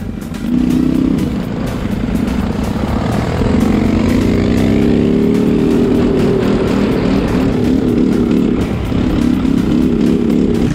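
Quad bike (ATV) engine running under way on a dirt track, its pitch rising and falling with the throttle, getting louder about half a second in.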